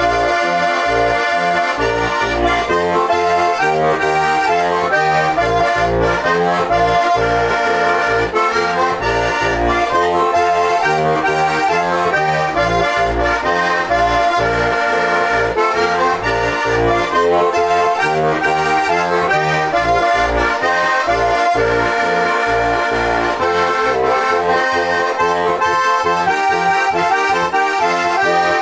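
Žúbor heligonka, a four-voice diatonic button accordion tuned in F–B♭ with brass reeds, playing a Slovak folk song: a continuous melody over a steady, evenly pulsing bass accompaniment.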